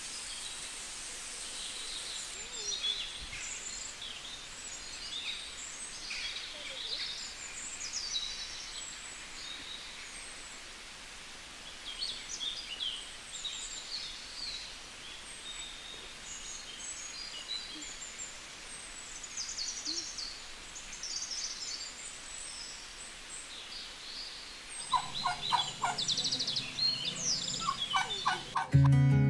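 Small wild birds chirping and singing over a steady outdoor hiss. About 25 seconds in, a domestic turkey gobbles several times in rapid rattling calls, the loudest sound. Strummed acoustic guitar music starts right at the end.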